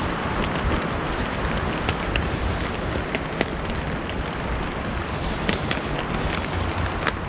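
Steady rain falling, an even hiss with scattered sharp raindrop ticks, and a low wind rumble on the microphone.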